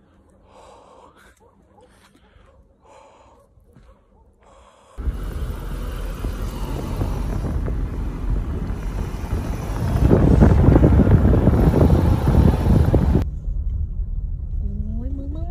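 A few soft breaths puffed out into cold air. Then comes an abrupt cut to a vehicle driving: a loud rushing noise over a low rumble, loudest a few seconds later. It drops near the end to a steadier engine rumble.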